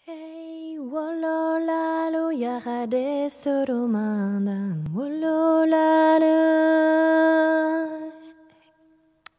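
A woman singing long, held notes in a chant-like melody, sliding between pitches, with a deep downward swoop about five seconds in. The voice fades out near the end.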